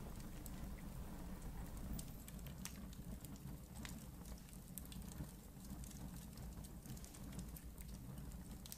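Faint background noise: a steady low hum with small clicks scattered through it.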